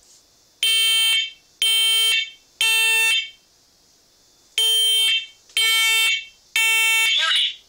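First Alert smoke and carbon monoxide alarm sounding its self-test, set off by holding the test button: two sets of three loud, shrill beeps, each about half a second long, with a pause of about a second and a half between the sets. This is the temporal-three pattern of a smoke alarm.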